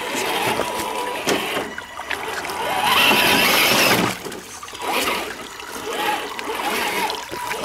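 RC crawler truck splashing through a rocky creek, its tyres churning water. The small electric drive motor whines, rising and falling in pitch with the throttle. The splashing is loudest about three to four seconds in.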